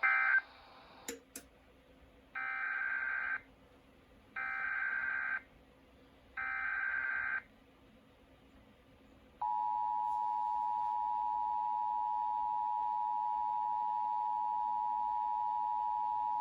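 Emergency Alert System data and alert tones. After the tail of a burst and two clicks, three one-second bursts of SAME header data sound about two seconds apart, marking the start of a new alert. About nine seconds in, the steady two-tone EAS attention signal begins and holds without a break.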